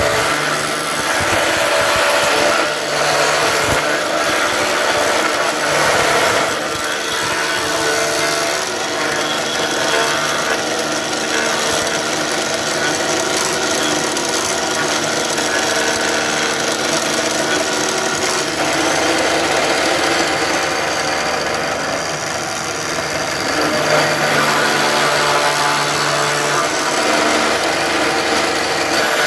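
Vertical rotary cutter running steadily and milling Kashmir willow from a cricket bat blade that is fed past it on a clamped carriage.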